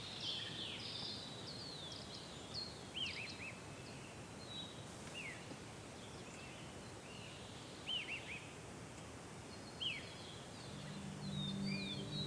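Wild birds chirping and calling in short, quick sweeping notes over a steady outdoor background hiss. Soft music fades in near the end.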